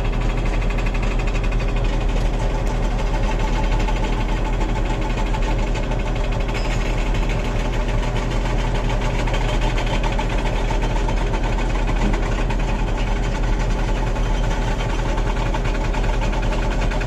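Heavy construction machinery's diesel engine running at a steady speed, an even hum with no change in pace.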